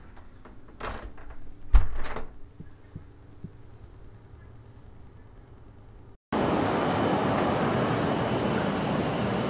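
A few knocks and one heavier thump of a hotel-room door being handled, the thump about two seconds in, over quiet room tone. About six seconds in, the sound cuts abruptly to a steady, loud wash of street traffic noise from buses and cars.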